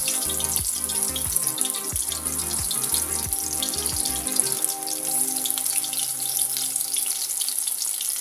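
Shrimp fritters deep-frying in hot oil: a steady sizzle full of fine crackles. Background music plays under it for the first half and fades out.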